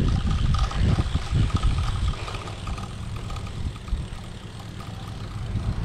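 Riding noise from a BMX bike on grass: wind rumbling on the camera microphone and tyres rolling over the turf. The rumble is louder in the first two seconds and eases off after.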